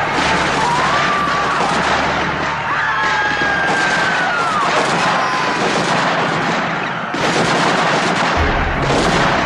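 Sustained rifle fire into a crowd, with people screaming and crying out. A low drone runs underneath early on and comes back near the end.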